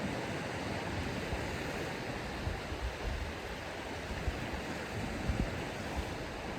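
Ocean surf washing onto a sandy beach: a steady rush of breaking waves, with a few brief low bumps about five seconds in.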